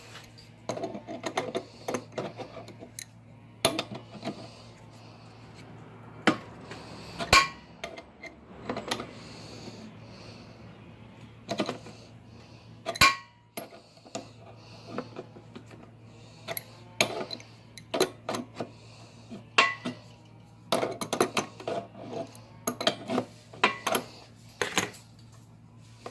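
Adjustable wrench clinking and scraping on the air compressor's metal quick-connect couplers as they are loosened and unscrewed: irregular sharp metal clicks and knocks, over a steady low hum.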